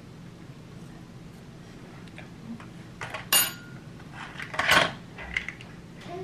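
A metal spoon and clear plastic food containers clattering, with the plastic parts of a baby fruit feeder knocking together as they are handled: two louder clatters, a little past three seconds and near five seconds, then a few lighter clicks.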